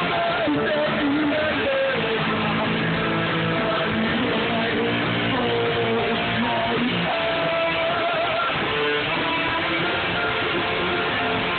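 Live band playing through a PA system: electric guitar, keyboard and drums with a singer's voice carrying a wavering melody on top. It is recorded from the crowd on a phone, so it sounds dull, with no high treble.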